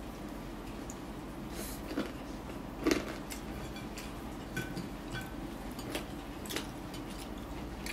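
Eating sounds: scattered short wet clicks and smacks of chewing and of fingers picking at rice and fried chicken, the loudest a little under three seconds in, over a steady low hum.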